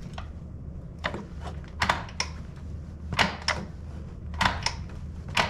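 Sharp clicks and clacks from the motorcycle's shift lever and new Thrashin linkage as the gear shifter is worked up and down to test its feel. Several clicks come in quick pairs.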